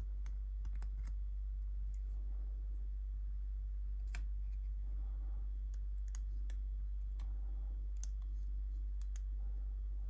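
Steel tweezers clicking and tapping against a small plastic-cased variable capacitor as it is pried apart: sharp, irregular clicks, several a few tenths of a second apart and others a second or more apart, over a steady low hum.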